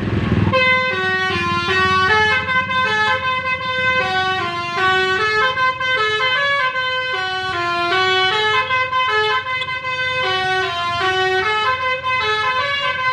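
Basuri telolet bus horn playing a multi-note melody in clear stepped tones, starting about half a second in, over a low steady rumble.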